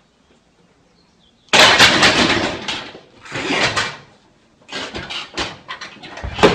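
A loaded barbell with bumper plates tipping and crashing down about a second and a half in, a sudden loud clatter, followed by more knocks and thuds as the bar, bench and lifter hit the rack and floor.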